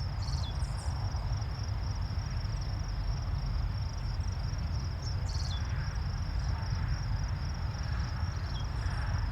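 Low, steady rumble of a freight train rolling past, with insects droning in a steady high tone and a couple of short high chirps.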